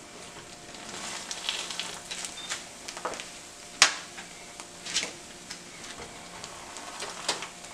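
Croissant buns sizzling faintly in butter and oil in a nonstick skillet, with several sharp clicks and taps of hands and a utensil against the pan, the loudest about four seconds in.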